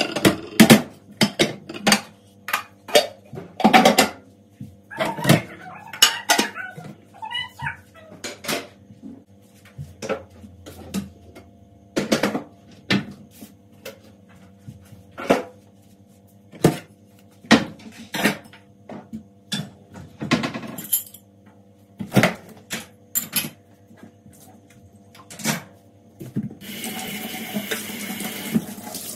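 Dishes and kitchen containers being handled, a string of separate clinks and knocks. Near the end a water tap runs for a few seconds.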